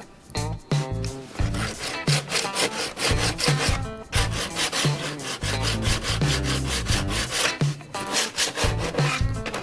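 A hand tool rasping back and forth on hard material in quick, even strokes, as in sawing or filing down a part.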